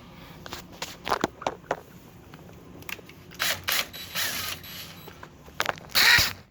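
Keyless drill chuck being hand-tightened onto the rod of a dryer-vent cleaning brush: ratcheting clicks and the knocks of the drill and rod being handled, with a short loud rasp near the end.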